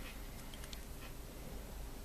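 Quiet room tone with a steady low hum, and a few faint small ticks about half a second to a second in as a fine paintbrush is dabbed in a small metal pot of silver paint.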